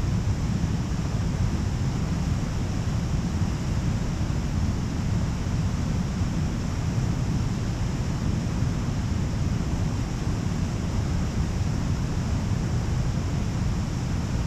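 Fast, high water of Shoal Creek rushing through rapids and over the rock ledges of Grand Falls: a steady, unbroken rush of water.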